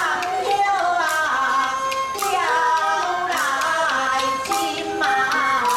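Live Taiwanese opera (bengzai) music: a wavering, ornamented melody over a sharp percussion stroke about once a second.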